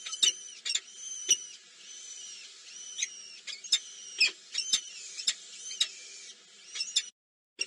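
Small birds at a nest chirping: rapid, sharp high chirps over thin, high-pitched peeping with short pitch glides. The sound cuts out for about half a second near the end.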